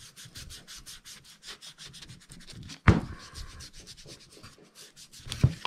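Foam ink-blending applicator scrubbed over a sanded wooden block in quick short strokes, several a second, working distress ink into the wood. A single louder knock about three seconds in.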